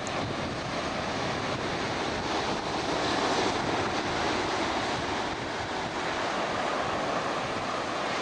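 Ocean surf breaking and washing up a beach, with wind rumbling on the microphone; the surf swells a little louder about three seconds in.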